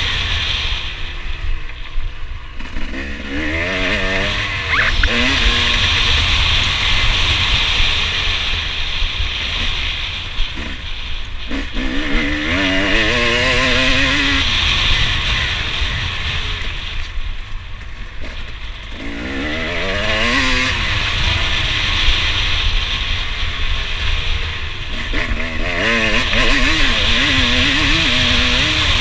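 KTM 250 SX single-cylinder two-stroke motocross engine being ridden hard, its pitch climbing in rising surges as it revs out and shifts up, then dropping off the throttle between, four times over. A steady low rumble of wind over the microphone runs underneath.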